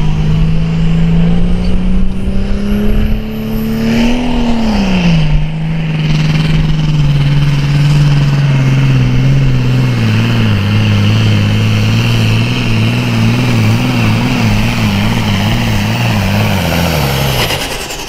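Super farm pulling tractor's diesel engine working hard under load down the pulling track. The engine note climbs to a peak about four seconds in and drops back. It then holds lower and, from about halfway, wavers rapidly and sinks further as the engine bogs, then cuts off near the end.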